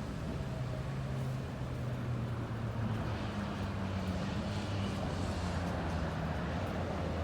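Road traffic on a busy street: cars passing with a steady hiss of tyres and a low engine hum that drifts slowly in pitch.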